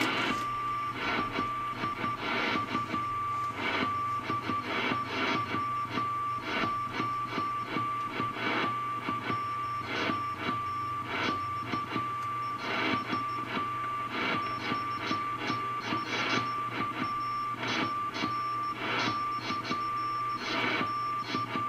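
40-metre shortwave band audio from a National NC-183D tube receiver: a steady whistle tone over irregular crackling static crashes on a rough, noisy band.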